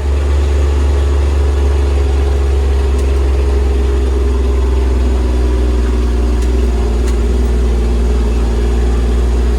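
Kubota RTV 900 utility vehicle's three-cylinder diesel engine running steadily with a constant low hum.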